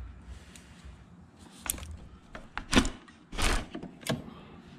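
Yamaha Grizzly ATV's gear shift lever being worked into gear, giving a few short clunks and knocks, the loudest a little under three seconds in.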